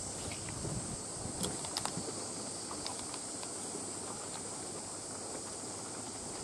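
Steady high-pitched chorus of insects, with a few faint sharp clicks about a second and a half in.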